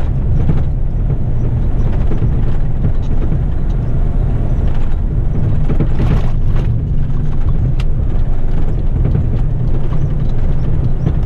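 Heavy rigid truck's diesel engine running steadily under way, a continuous low drone mixed with road noise.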